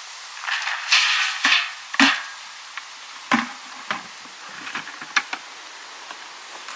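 Rustling and a series of sharp knocks and clatters from bait-site gear being handled, with the loudest knocks in the first half.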